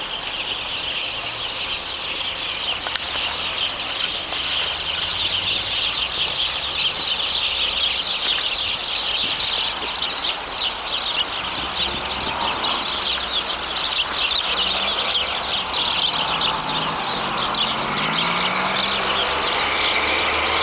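A flock of sparrows chirping together: a dense, continuous chatter of many short overlapping chirps.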